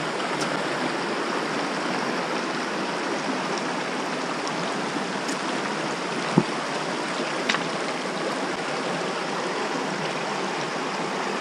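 Cane Creek running over a shallow rocky crossing, a steady rushing of water. A single sharp knock about six seconds in.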